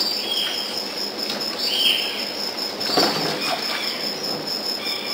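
A sponge squeaking against small plastic pots as they are scrubbed in a basin of soapy water, in several short high squeaks, with water sloshing and a knock of a pot against the basin about three seconds in.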